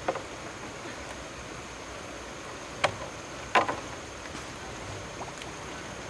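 Water splashing three times: once at the start, then twice close together a little before halfway, the last the loudest. A steady hiss runs underneath.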